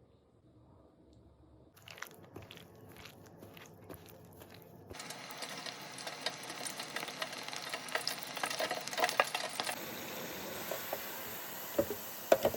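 Chicken breast frying in a pan: a steady hiss thick with small crackles and pops that comes in about five seconds in, after a few faint clicks. A couple of louder knocks come near the end.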